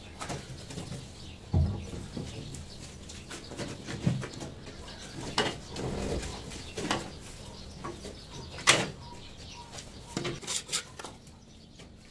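A dozen or so short, sharp taps and knocks at irregular intervals, the loudest about two-thirds of the way in, over a faint low hum.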